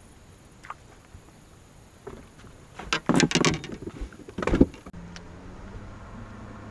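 Loud knocks and clatter of gear being handled on a bass boat's deck, loudest about three and four and a half seconds in, followed by the steady low hum of the boat's electric trolling motor starting about five seconds in.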